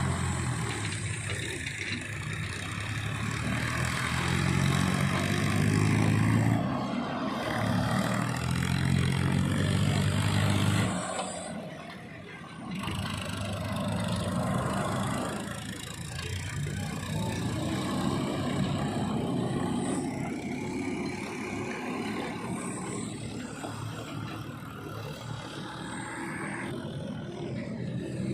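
Heavy diesel machinery engine running under load, with revs swelling and easing as it works. The engine drops off sharply about eleven seconds in, then picks up again and runs on more steadily.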